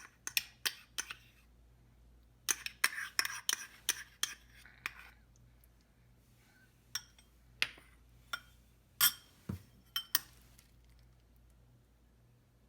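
Kitchen utensils clinking and tapping against dishware: a quick run of taps at the start, a busy cluster a few seconds in, then scattered single clinks, the loudest about two-thirds through.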